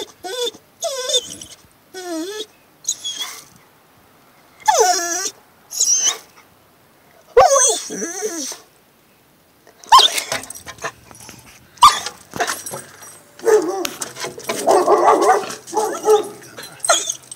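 Dog whining and whimpering in short, wavering pitched cries, with a few short barks, excited at a possum cornered in a woodpile; a longer, rougher noisy stretch comes in the second half.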